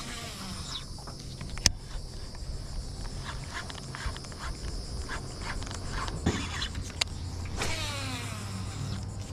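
Baitcasting reel in use: a cast with the spool whirring down in pitch, a sharp click as the reel engages, then the cranking of the retrieve, and a second whirring cast near the end. A steady low hum sits underneath.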